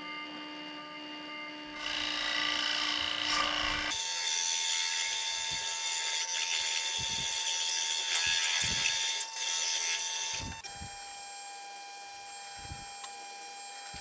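Benchtop drill press running with its steady motor hum, the bit boring into a plywood block: a louder rasping cut from about two seconds in until about ten and a half seconds, then the press runs on more quietly at a slightly lower pitch.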